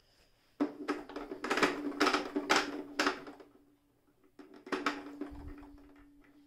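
Toyota Jeans JS021 sewing machine's mechanism clicking and knocking in two bursts as it is worked by hand at its right side, over a faint steady hum.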